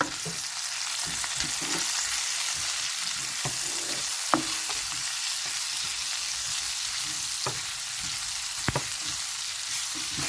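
Beef, onion and vegetables sizzling in a frying pan as they are stirred in with spices, with a few sharp knocks against the pan.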